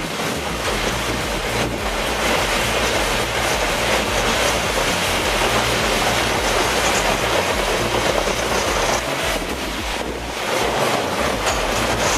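Heavy forestry machine working wood: a loud, steady mechanical noise with a low drone underneath.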